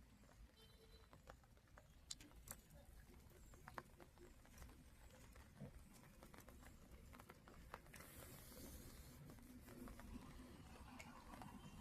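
Near silence: a faint low background rumble with scattered soft taps and ticks.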